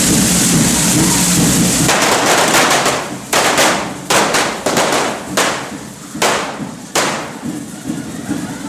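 Correfoc fireworks: a steady rushing hiss of hand-held spark-spraying fireworks, then from about two seconds in a run of firecracker bangs, roughly one a second, each trailing off in a hiss.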